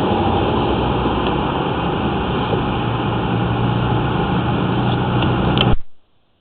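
A steady mechanical running noise, like an engine or motor, with a low hum under it; it cuts off abruptly near the end.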